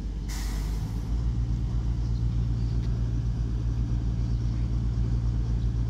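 Virgin Voyager diesel multiple unit's underfloor diesel engines running up as the train pulls away, a steady low hum with a slight pulsing that settles in about a second in. Just before it, a short burst of hiss.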